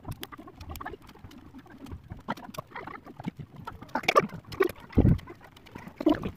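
Thin wicker rods creaking, rustling and clicking as they are bent and woven into the rim of a wicker piece, with a few louder knocks about four and five seconds in.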